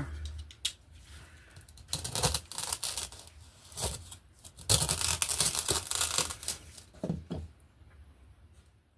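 Craft materials being handled: irregular bursts of tearing and rustling with a few clicks, the longest and loudest about five to six and a half seconds in, then quiet near the end.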